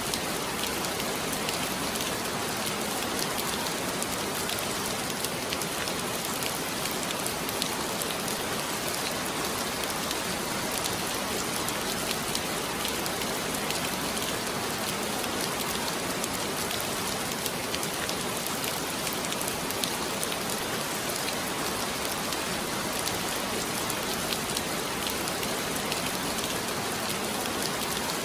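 Heavy rain falling steadily, a dense even hiss with many fine drop impacts on a surface.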